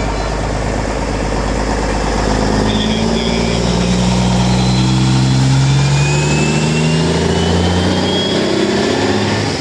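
A car engine accelerating, its pitch rising steadily from about four seconds in, with a faint rising whine alongside.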